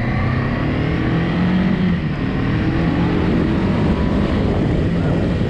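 Motorcycle engine running while riding on the road, its note climbing and dropping back a couple of times, over steady wind and road rush.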